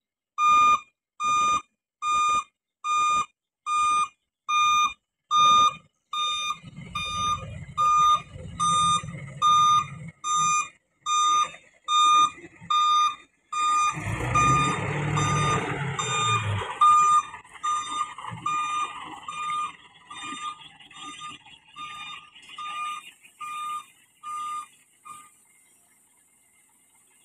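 Reversing alarm of a Mitsubishi Fuso Canter dump truck beeping steadily, about three beeps every two seconds, as the truck backs up. Its diesel engine comes in a few seconds in and is loudest around the middle. The beeps fade and stop shortly before the end.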